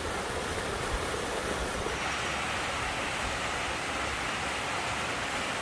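Steady rush of water from a mountain stream's chain of small waterfalls and pools.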